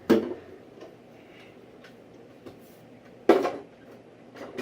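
Hand tools being handled and knocked together: a short knock right at the start, a louder one a little over three seconds in, and a faint one near the end.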